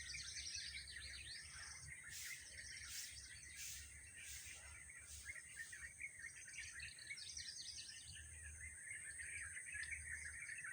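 Small birds chirping and twittering together in a dense, continuous chorus, with a steady high-pitched hiss behind it. In the first half, a run of about six short, sharp high notes comes at an even pace.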